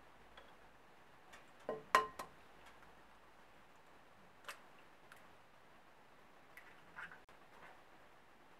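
Light clinks and taps of a spatula and small bowls against a glass mixing bowl while cookie dough is mixed and ingredients are added. The loudest, a short ringing glass clink, comes about two seconds in, with single taps a few seconds later and near the end.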